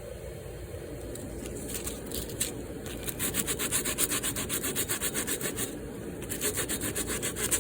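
Hand sanding of a cracked crash cymbal's edge repair with sandpaper: quick, even back-and-forth rasping strokes, several a second, smoothing the drilled and filed edge, with a brief pause about six seconds in.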